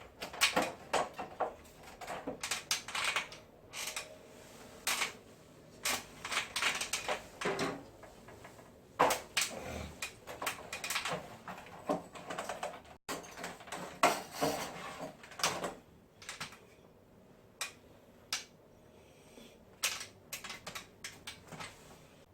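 Irregular clicks, taps and knocks of hard plastic parts and tools being handled, in quick clusters with short pauses. It fits a wall-mounted air conditioner being taken apart for cleaning.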